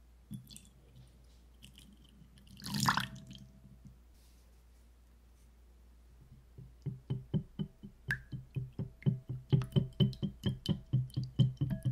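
Milk poured into a glass bowl onto an egg, a short splashing pour about three seconds in. From about halfway, a wire whisk beats the egg and milk, clicking against the glass bowl in a fast, even rhythm of about four strokes a second, with a faint ring from the glass.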